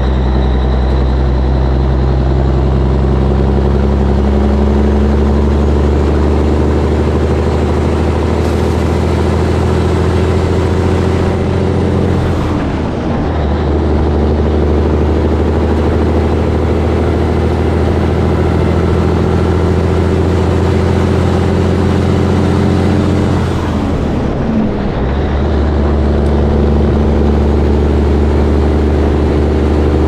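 Caterpillar diesel of a Peterbilt 362 cabover semi running under load at road speed, a steady deep engine note. The note breaks off briefly twice, about twelve and twenty-four seconds in, as if on gear changes, then picks up again.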